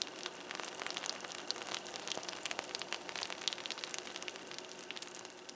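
Freshly baked peach dump cake sizzling and bubbling in its hot pan, the butter in the crumble topping and the fruit filling crackling: a dense run of fine, irregular crackles that eases slightly near the end.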